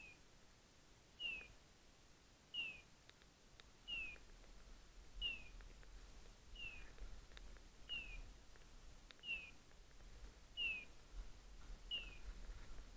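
Hunting dog's beeper collar sounding a short, high, falling chirp at a very even pace, about three chirps every four seconds.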